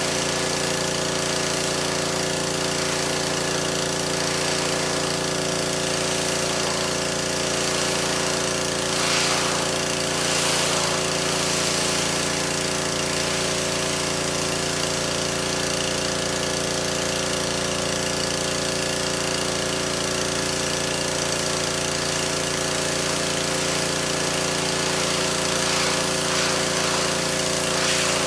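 Pressure washer running steadily: a constant motor drone under a broad spray hiss, which swells briefly about nine seconds in and again near the end.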